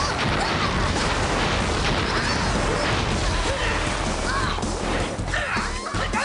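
Sound effects from a staged TV fight. An explosion effect, a dense crashing rush of noise, fills the first few seconds. Near the end come short shouts and sharp hits.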